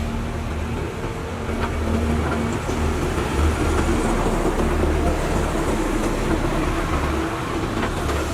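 Caterpillar 320 hydraulic excavator's diesel engine running under working load. It gets louder about two seconds in and eases off near the end.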